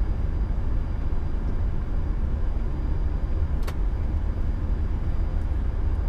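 Flight-deck noise of an Airbus A340-300 taxiing: a steady low rumble, with one sharp click a little past halfway.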